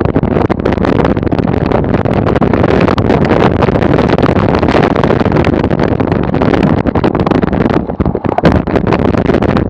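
Wind buffeting the microphone while riding a bike fast down a bumpy grass slope, with frequent knocks and rattles from the bike over the rough ground.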